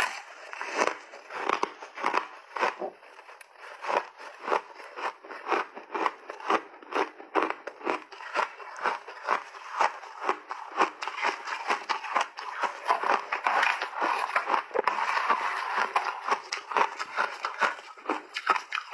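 Close-miked chewing of a mouthful of crushed, refrozen mixed-berry ice: a fast, even run of crisp crunches.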